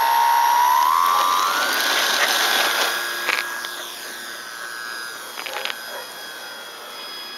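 Homemade RC model plane's motor and propeller whining, rising smoothly in pitch as the throttle opens for the takeoff run, then holding steady and fading as the plane climbs away.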